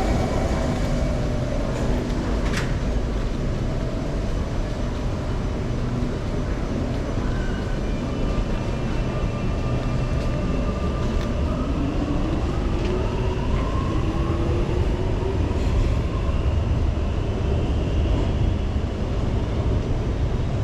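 Singapore MRT train running, with a steady low rumble of wheels on track and a whine that rises in pitch about halfway through as the train picks up speed.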